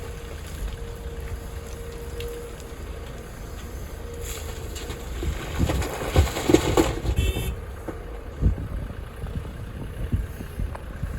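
Excavator and dump truck at work: a steady low engine rumble with wind buffeting the microphone, a louder stretch of clattering knocks about six seconds in, and a single thump near the end.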